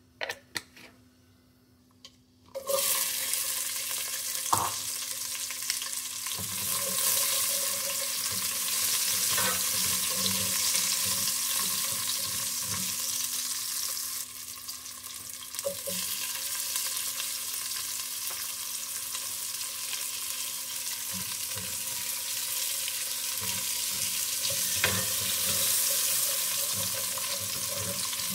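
Garlic cloves and whole spices frying in hot olive oil in a pot: a steady sizzle that starts suddenly a couple of seconds in, after a few light clicks.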